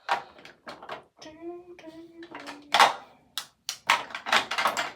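Plastic lipstick and lip gloss tubes clicking and clattering as they are sorted through: a string of sharp knocks, loudest in the second half.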